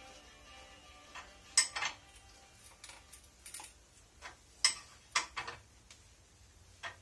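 Irregular sharp metallic clinks and taps of hand tools against motorcycle engine parts, about eight separate knocks, the loudest about a second and a half in.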